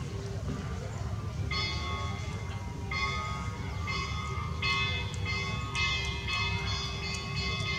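A series of struck, ringing bell-like tones, each starting sharply and sustaining, coming more often toward the end, over a steady low hum.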